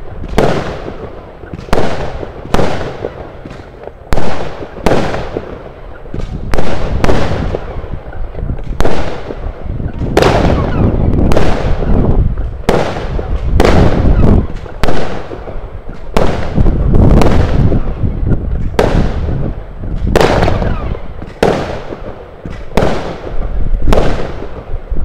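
Brutus firework battery firing shot after shot, a loud bang with a fading tail about every second.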